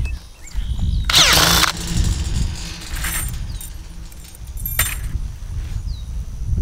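Cordless drill with a T-post clip chuck running in one short burst about a second in, spinning a wire clip so that it wraps tight around a steel T-post and the fence wire. A sharp click follows near five seconds in, over a steady low rumble.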